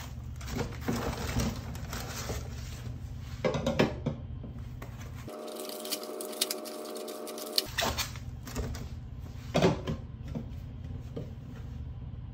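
Hard plastic dog bowls and a plastic feeder base knocking and clattering as they are handled and fitted together, with a few sharp knocks spread through, over a steady low hum.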